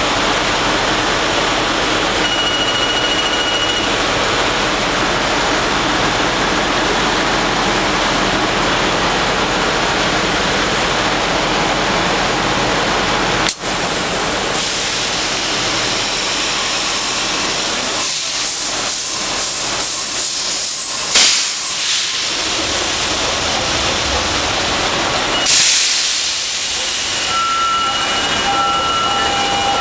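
Loud, steady engine-room machinery noise. About two-thirds of the way in, a run of rapid pulses and two sharp hissing blasts come as compressed starting air is let into the MAN B&W 12K98MC main engine to turn it over. Intermittent beeping tones near the end.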